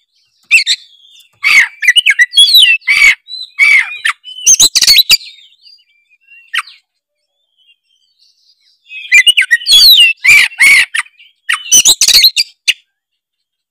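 Oriental magpie-robin (kacer) in full song, loud rapid varied phrases. It sings in two bouts separated by a pause of about four seconds.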